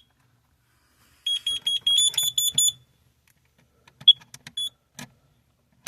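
Carbon monoxide detectors alarming, set off by carbon monoxide test gas. A fast run of high-pitched beeps, about seven a second, starts about a second in and lasts about a second and a half; a single beep and a few short clicks follow near the end.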